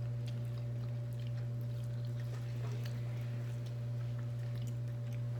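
Steady low hum with faint clicks and smacks of people chewing while they eat.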